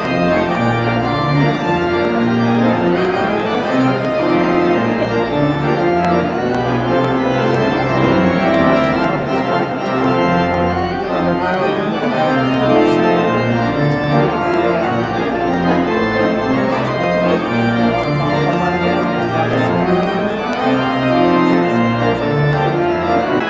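Pipe organ playing a slow piece of held chords that change about once a second.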